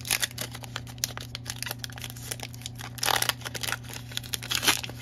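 Baseball card pack wrapper being torn open by gloved hands, crinkling and tearing, with louder crackle about three seconds in and again shortly before the end.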